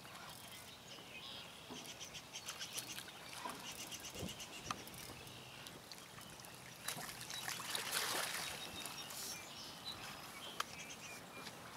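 Water splashing and sloshing at the shoreline as a hooked carp thrashes at the surface while being played in, with scattered small clicks and ticks. The splashing is loudest about seven to eight seconds in.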